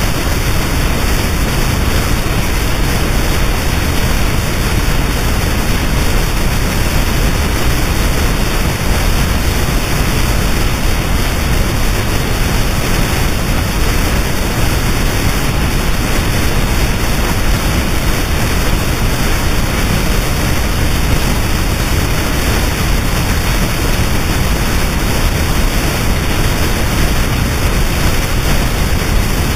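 Harsh noise wall music: a dense, unchanging roar of static hiss and low rumble at a steady loud level, with no rhythm, melody or breaks.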